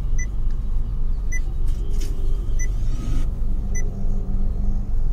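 Low steady rumble in a car cabin, with four short high electronic beeps evenly spaced a little over a second apart.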